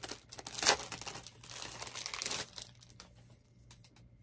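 Clear plastic packaging crinkling and rustling as it is pulled open by hand. The crinkling is loudest about two-thirds of a second in and dies down after about two and a half seconds, leaving a few faint clicks.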